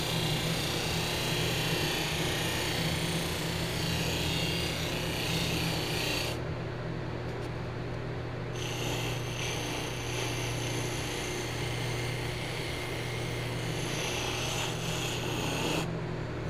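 Bench polishing motor running with a steady hum while a stainless steel trim strip is pressed against the spinning buffing wheel, giving a continuous rasping rub. The rubbing stops for about two seconds roughly six seconds in and again near the end, leaving only the motor hum.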